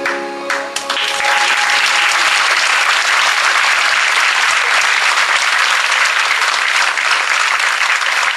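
Theatre audience applauding: the music ends in the first second and the clapping comes in about a second in, then goes on dense and steady.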